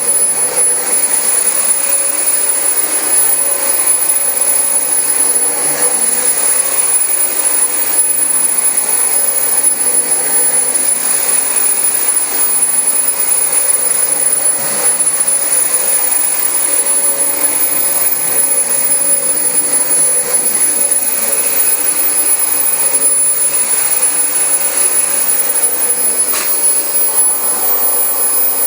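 Dyson DC25 upright vacuum cleaner running steadily on carpet: a loud, even rush of air with a high-pitched motor whine over it.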